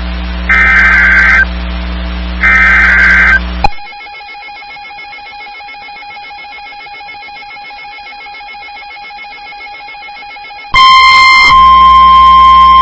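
NOAA Weather Radio alert signals. First come the last two bursts of the SAME digital header: harsh, buzzy data screeches about a second long, a second apart. Then a quieter stretch with a faint steady hum, and about eleven seconds in the loud, steady beep of the warning alarm tone begins. The tones herald a new warning broadcast, here a tornado warning.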